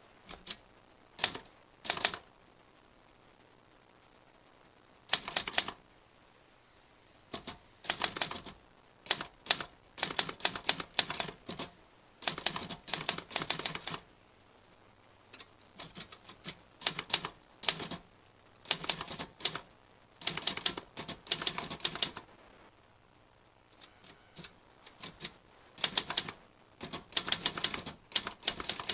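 Typewriter being typed on: bursts of rapid key strikes, each burst lasting a second or two, separated by short pauses.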